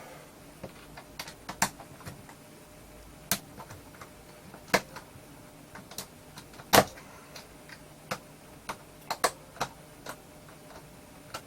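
Scattered sharp clicks and taps of a screwdriver, screws and the plastic speaker casing being handled as screws are taken out, with the loudest knock about two thirds of the way through.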